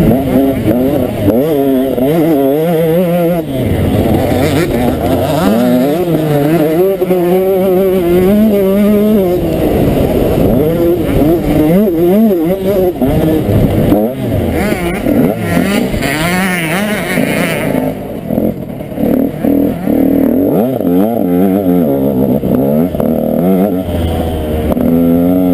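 KTM 125 SX single-cylinder two-stroke engine heard up close from onboard the bike, revving hard again and again, its pitch climbing and dropping every second or two as the throttle opens and closes through gear changes.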